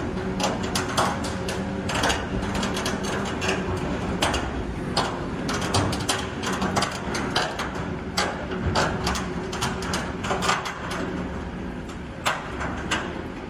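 Steel pontoon tracks of a Big Float E15 amphibious excavator clanking and rattling as the machine crawls forward, with irregular metallic knocks several times a second. Under them the Caterpillar 312's diesel engine runs steadily.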